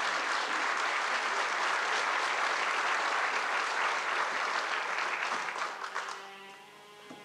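Theatre audience applauding steadily, fading out about six seconds in as soft string music begins.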